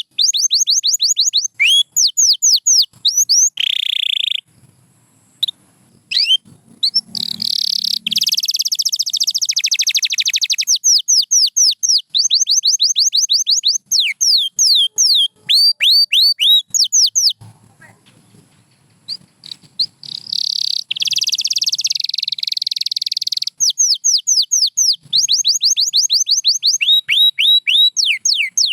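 Domestic canary singing: runs of quick, falling whistled notes at about five a second, broken twice by dense rapid trills and by two short pauses.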